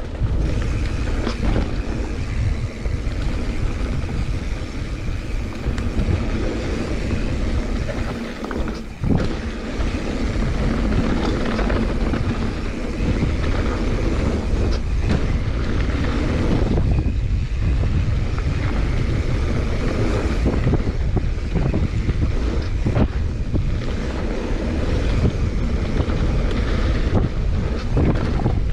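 Wind buffeting a GoPro's microphone as a mountain bike descends a dirt downhill trail at speed, with tyres rolling on dirt and scattered knocks and rattles as the bike hits bumps.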